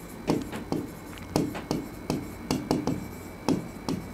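Writing on a blackboard: an irregular run of short taps and scratches as the writing tip strikes and drags across the board, about a dozen strokes.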